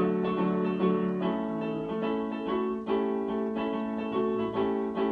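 Electronic keyboard playing an instrumental passage without singing: a run of notes over held lower tones.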